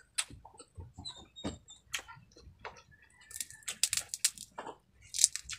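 Crisp deep-fried baby crabs cracking and crunching as they are pulled apart by hand and chewed. There is a dense run of sharp crackles about three and a half seconds in and another short burst near the end.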